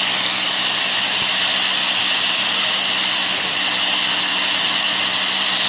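Power grinder running steadily, its abrasive wheel grinding a small 3–4 mm component with a continuous high hiss over a low motor hum.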